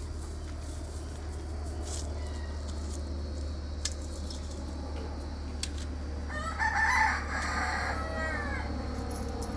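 A rooster crowing once, about two seconds long, starting a little past halfway through and trailing off in falling notes. A few faint clicks come before it, over a steady low hum.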